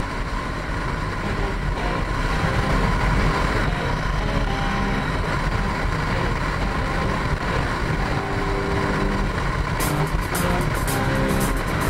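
Motorcycle riding at highway speed, picked up by a camera mounted on the bike: steady engine, wind and road noise. Music sits faintly behind it, and its beat comes back in near the end.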